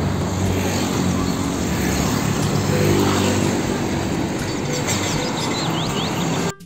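Road traffic: a loaded car-carrier truck's diesel engine running as it drives past, with tyre noise from passing cars and motorbikes. The sound cuts off suddenly near the end.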